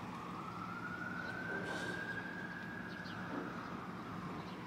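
A distant siren wailing: one long tone that slowly rises over the first two seconds, holds, then sinks a little near the end, over a steady low hum.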